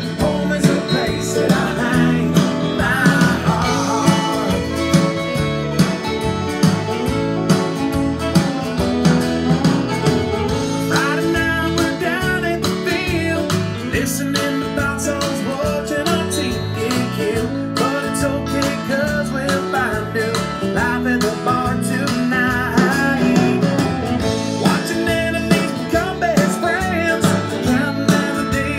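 A country song plays back in full: a singing voice over guitar and band, being mixed down to a final stereo mix.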